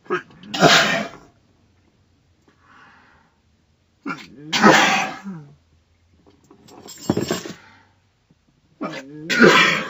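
A girl's sneezing fit: four loud sneezes about two to three seconds apart, each voiced and falling in pitch.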